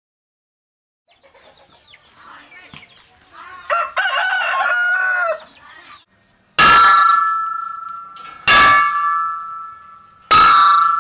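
A rooster crows once about four seconds in. Then a hanging metal gas cylinder, used as a bell, is struck with a stone three times, about two seconds apart, each clang ringing on and fading.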